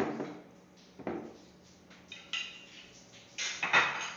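A metal spoon knocking and scraping in a glass baking dish while spreading diced pineapple: two dull knocks about a second apart, then louder, brighter clattering near the end.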